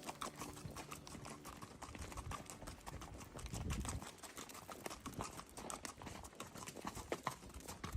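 Several horses' hooves clip-clopping along a trail, a dense, uneven run of clops from more than one animal walking.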